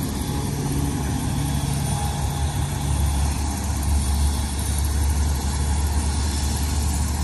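Heavy vehicle engines idling, a steady low rumble.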